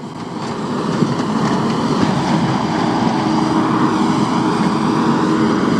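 Skid steer engine running steadily while the machine works, with a steady hum that comes in about halfway through.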